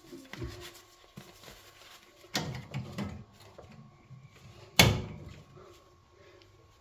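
A few knocks about two and a half seconds in, then a single sharp clack near five seconds, like a door or panel being shut. A faint steady hum runs beneath.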